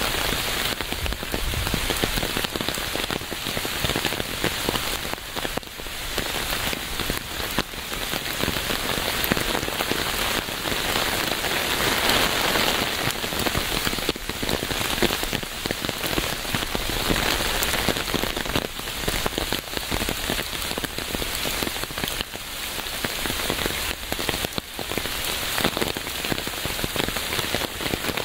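Steady rain falling, a dense patter of many drops with fine individual ticks, strongest in the upper middle range.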